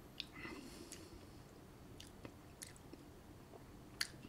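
Faint mouth sounds of a man savouring a sip of whisky: a few soft lip smacks and tongue clicks spread over the seconds, with a short wet smacking about half a second in.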